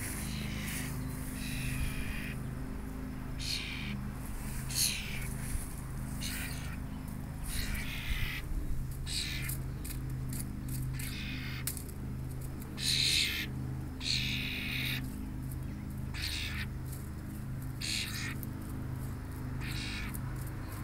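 Juvenile European starling giving its harsh baby squawk, short rasping calls repeated at irregular intervals. A steady low hum runs underneath.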